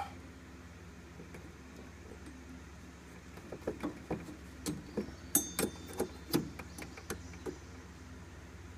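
Irregular small metallic clicks and taps, starting a few seconds in, from snap ring pliers and a snap ring being worked onto the transmission fan pulley shaft.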